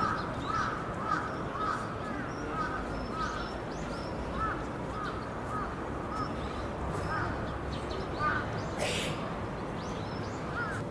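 A long series of short, repeated animal calls, about two a second, that stops about eight seconds in, with one more call near the end. About nine seconds in there is a single brief noisy burst.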